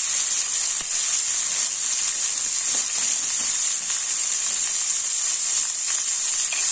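Orzo and chopped green peppers frying in hot oil in a stainless steel pan, a steady sizzle as the orzo toasts.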